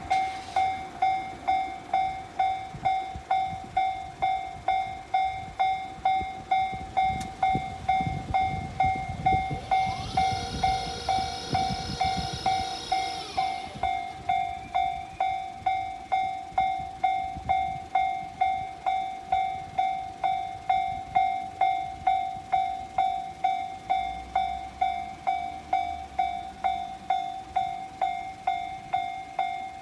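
Japanese railway level-crossing warning bell ringing steadily, about two strokes a second, each stroke dying away. A train passes through about ten seconds in, adding a low rumble and a brief whining tone for a few seconds.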